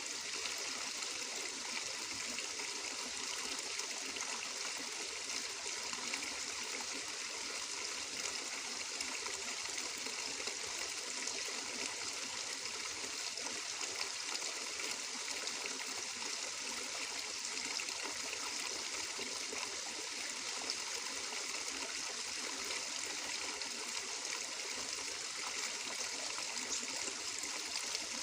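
Water flowing steadily over stones in a stream, an even trickling and babbling.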